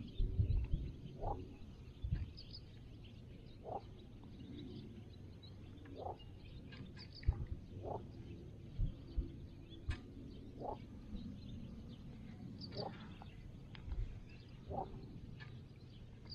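An animal by the water gives a short call over and over, about every two seconds, against faint small-bird chirps. Low rumbles and thumps come and go underneath.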